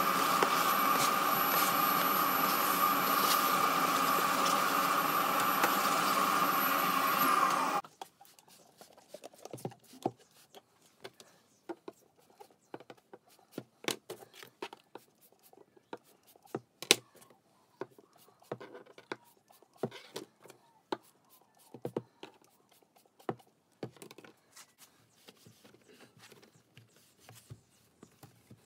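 Workshop vacuum cleaner running with a steady whine, switched off about eight seconds in. After that come scattered light taps and scrapes from the plastic window frame as it is wiped down with a cloth.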